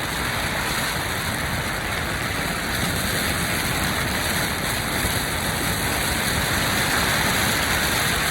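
Steady road and wind noise of a truck travelling at highway speed, an even hiss that grows slightly louder.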